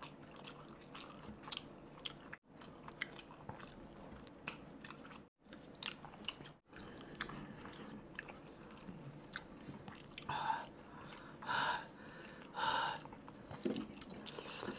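Close-miked, quiet chewing and biting of spicy noodles, with many small wet mouth clicks and smacks. About ten seconds in come three short vocal sounds a second apart.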